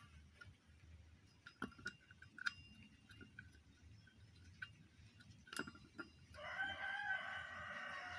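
A few scattered light clicks and clinks, then about six seconds in a single long animal call of about two seconds that drops in pitch as it ends.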